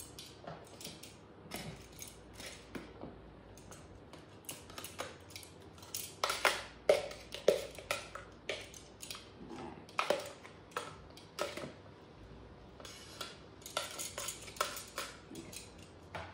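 Metal kitchen tongs clicking and scraping against plastic as sliced vegetables are lifted out of a food processor's cutter drum and dropped into a plastic container. The clatter is irregular and loudest around the middle.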